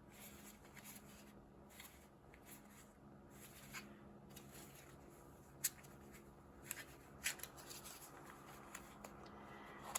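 Faint rustling and a few light clicks of small cardboard product boxes being handled and opened, over the steady low hum of an electric fan.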